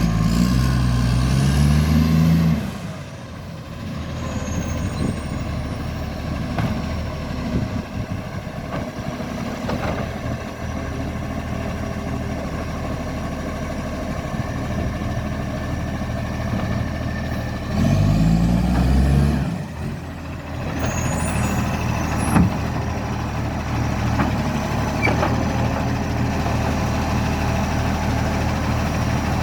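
Garbage truck diesel engine pulling away twice, its pitch climbing with a rising whine, at the start and again about 18 seconds in, and running steadily in between. The truck has a very bad exhaust leak. A single sharp knock comes about 22 seconds in.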